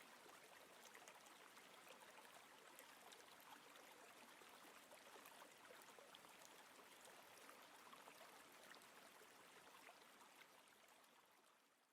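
Faint river water flowing and trickling, with small splashes and droplets, fading out in the last second.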